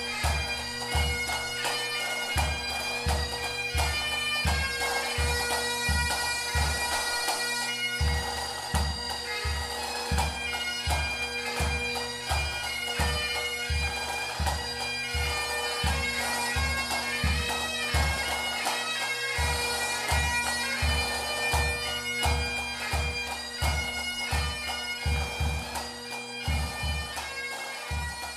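Pipe band music: bagpipes playing a melody over their steady drones, with regular drum beats underneath. It begins to fade out near the end.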